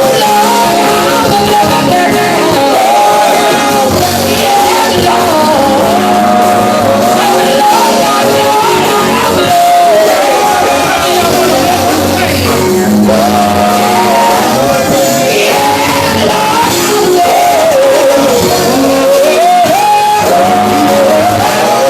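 Gospel band playing a song, with a lead voice singing over the instruments.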